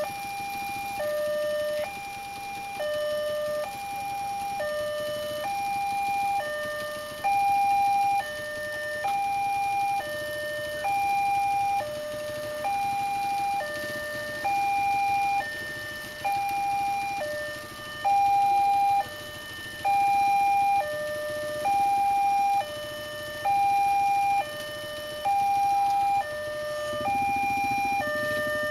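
Electronic two-tone warning alarm of a railway level crossing, alternating steadily between a higher and a lower tone, each held just under a second. It signals that a train is approaching and the barriers are down. A low rumble comes in near the end.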